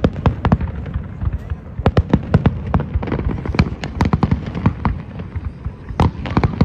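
Fireworks going off in a rapid, irregular run of bangs and pops, several a second, over a crowd's voices.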